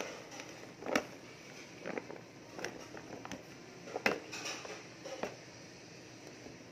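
Scattered light knocks and taps, roughly one a second, with no steady rhythm.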